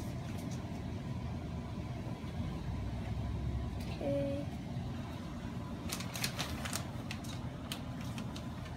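Steady low rumble of kitchen background noise, with a short cluster of crisp crinkles from a plastic bag of shredded cheese about six to seven seconds in.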